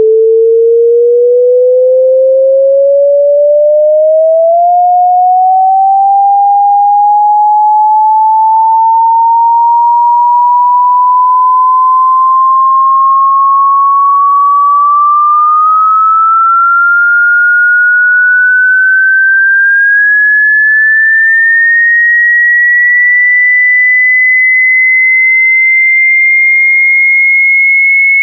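A single pure sine-wave test tone, steady in loudness, gliding slowly upward in pitch from a mid hum to a high, thin tone: a hearing-test frequency sweep.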